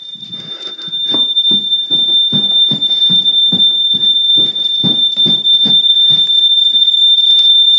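A smoke alarm sounding one continuous high-pitched tone. Footsteps come about two or three a second from about a second in until near the end.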